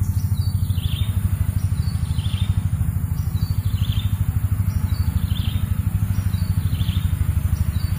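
A small engine running steadily nearby with a rapid low throb, and a bird repeating a short high chirp about every one and a half seconds.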